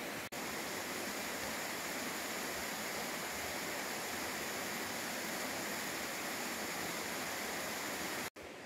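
Rushing water of a rocky mountain stream, a steady even noise that briefly cuts out twice, just after the start and near the end.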